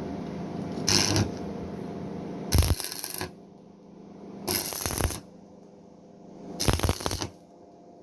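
Electric arc welding, four short tack welds on a steel nut, each a brief burst of sputtering crackle, over a steady electrical hum.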